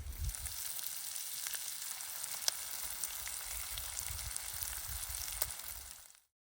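Food sizzling in a frying pan over a campfire: a steady hiss with a few sharp pops, fading out near the end.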